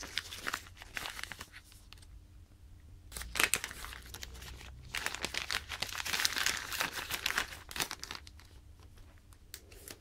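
Thin plastic bag crinkling and tearing as it is pulled open by hand, in uneven bursts with a short lull about two seconds in.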